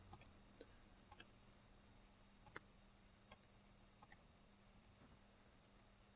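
Faint, sharp computer mouse clicks, about ten of them and mostly in quick pairs like press and release, spread over the first four seconds.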